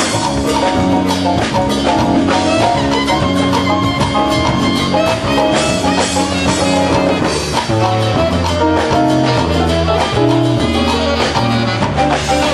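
Latin jazz band playing live, with congas, piano, drum kit and a stepping bass line under the band.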